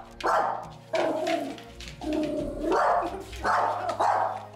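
Yorkshire terrier puppy barking over and over, about six barks in an even run: frightened barking at an unfamiliar object.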